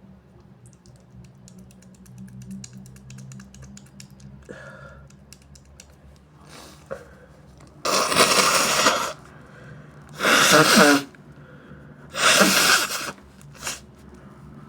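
A person with a congested, sinusitis-sore nose forcing air out through it in three loud bursts about a second long, with a shorter one just after. Faint crackling clicks come before them.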